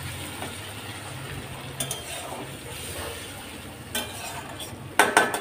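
A metal spatula stirring and scraping in an aluminium kadai as a little water is poured into frying spice paste, with a soft steady sizzle. Near the end come a few sharp clinks of the spatula against the pan.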